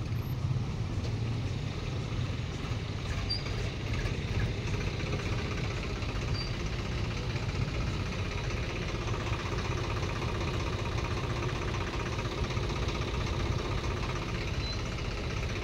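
Steady rumble of idling and slow-moving engines in a congested road traffic jam, heard from a scooter riding among the cars.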